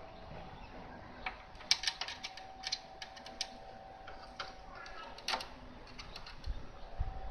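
Light, irregular clicks and taps of multimeter test probes being placed on a circuit board to measure AC voltage, over a faint steady hum.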